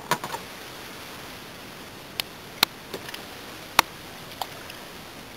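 A handful of sharp, irregular clicks and taps over a steady hiss: a quick cluster at the start, then single clicks through the middle, the loudest a little before four seconds in.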